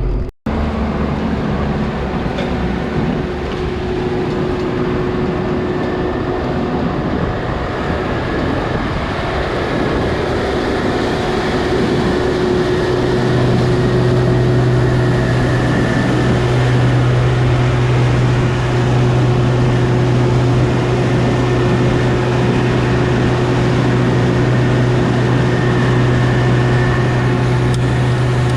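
Farm tractor engine running steadily under way, a low hum growing louder about 13 seconds in. The sound cuts out for an instant right at the start.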